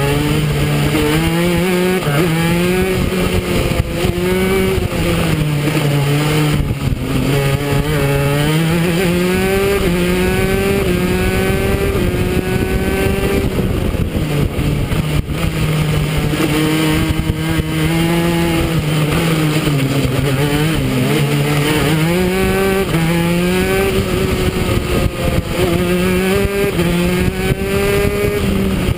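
Go-kart engine running under load on track, its pitch rising as it accelerates and dropping as the throttle is lifted, over and over.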